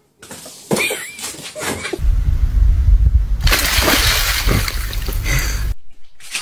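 A dog splashing through shallow icy water, breaking thin ice as it steps, with a deep rumble underneath. The sound starts about two seconds in and cuts off suddenly near the end.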